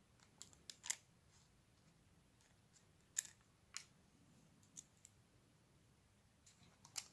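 Faint, scattered sharp clicks and light metal taps, a second or more apart, from washers and nuts being fitted onto the cylinder head studs of a Nissan RB25 engine; the loudest comes near the end.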